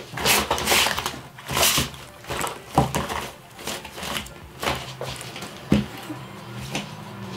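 Hands rummaging through a fabric toiletry bag: cloth rustling and small items knocking and clattering together in irregular bursts, loudest in the first two seconds.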